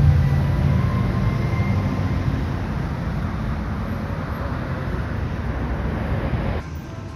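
City street traffic: a heavy vehicle's low engine rumble, loudest at the start and slowly fading, over a steady traffic hum. The sound drops off suddenly near the end.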